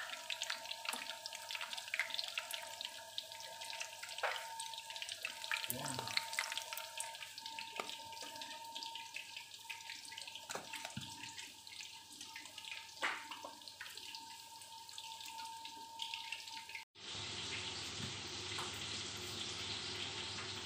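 Chicken goujons shallow-frying in oil in a pan: a steady crackling sizzle with many scattered pops. About three-quarters of the way through it cuts off abruptly and a smoother, even hiss takes over.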